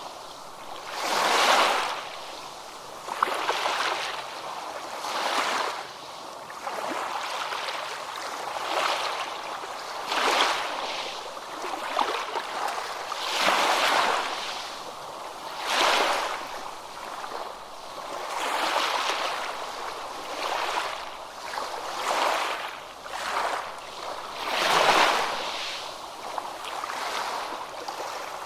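Ocean waves breaking and washing, each wave swelling and falling away every two to three seconds, with water rippling between them.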